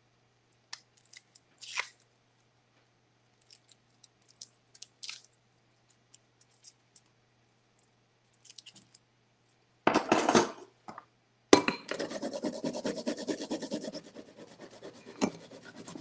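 Faint clicks and scrapes of a small knife peeling a garlic clove, then a brief louder noise and, from about eleven seconds in, a fast, even rasping as the clove is grated on a microplane zester. The rasping is loudest for its first couple of seconds, then goes on more quietly.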